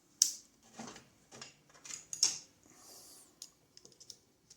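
Parts of a Ford gear-reduction starter being handled while the brush holder assembly is fitted onto the armature: a run of sharp clicks and knocks, a brief rustle about three seconds in, then a few light ticks.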